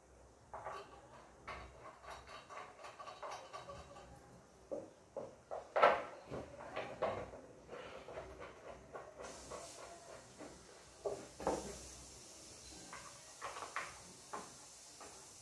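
Scattered small clicks and knocks of a plastic tyre hugger and its metal bolts being handled as the bolts are fitted into it by hand, with one louder knock about six seconds in. A faint hiss comes in about nine seconds in.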